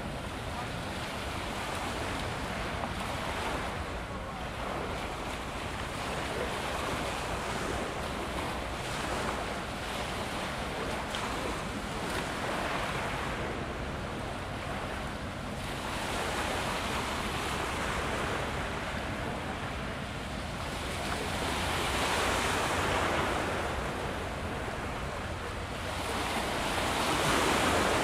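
Small waves washing against a rocky shoreline, swelling and easing every few seconds, over a steady low rumble.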